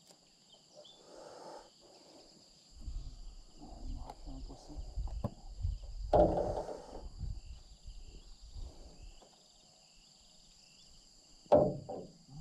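Steady high drone of jungle insects. From about three seconds in, low thumps and rustling come from a landed giant snakehead being handled and thrashing in the bottom of a boat, loudest around the middle. Two sharp, louder sounds come near the end.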